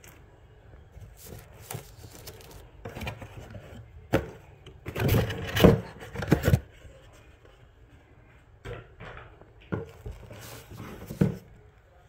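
Cardboard box and the wrapping around a small humidifier being handled as the unit is lifted out: irregular scraping and rustling, loudest in a cluster about five to six and a half seconds in, with more rustles around nine to eleven seconds.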